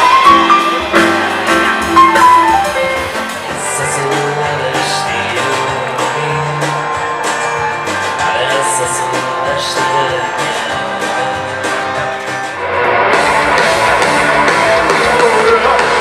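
Live music on an outdoor festival stage, led by an acoustic guitar with a cello. About 13 s in it cuts to a louder, denser electric rock band with electric guitar.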